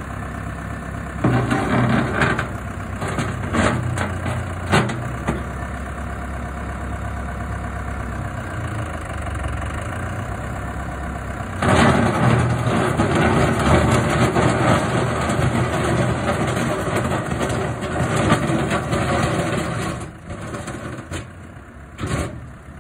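Deutz-Fahr Agroplus 85 tractor's diesel engine running. About halfway through it becomes suddenly louder and fuller, holds there for about eight seconds, then drops back near the end.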